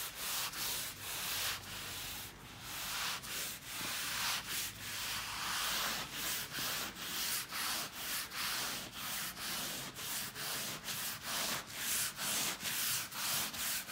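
A 280-grit sanding pad rubbed by hand back and forth over the painted leather of a car seat, a scratchy rasp at about two strokes a second. It is de-nibbing the base coat, taking off high spots before the colour is sprayed on.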